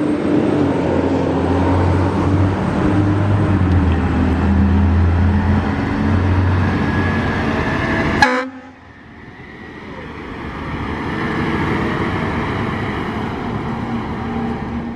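Fire apparatus running close by, a loud low steady rumble with some pitched tones; about eight seconds in it cuts off suddenly and a quieter vehicle sound swells up in its place.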